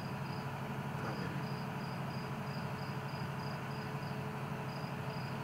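A cricket chirping, a high short chirp about three times a second, with a brief pause about half a second in, over a steady low hum.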